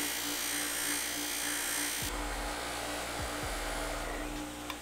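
Bench grinder running with a polishing wheel and white compound while a brake caliper piston is buffed against it: a steady motor hum under a loud rushing hiss from the buffing, which stops about two seconds in while the motor keeps running.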